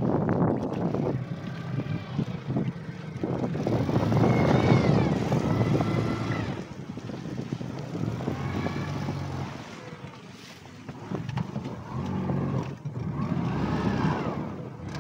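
Fishing boat's engine running, its pitch rising and falling several times as the throttle changes.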